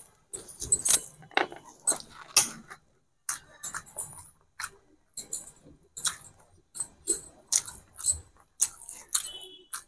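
A person eating rice by hand: irregular wet smacking and chewing clicks, about one or two a second, with light clinks of the bangles on her wrist.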